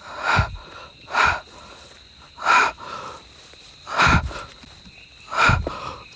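A man breathing hard, five loud breaths about every one and a half seconds.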